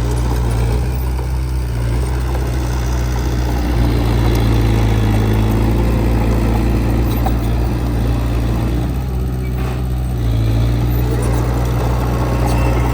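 Heavy earthmoving machine's diesel engine running steadily with a low drone, swelling a little in the middle.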